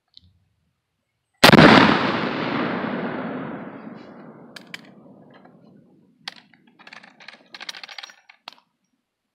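A single blast from a 12-gauge black powder shotgun about a second and a half in, its echo rolling away over several seconds. Afterwards come a few small clicks and rattles as the gun is handled.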